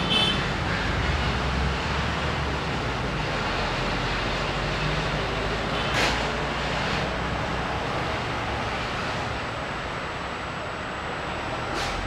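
Steady wind blowing over the microphone with a low rumble, and a sharp click about six seconds in and another near the end.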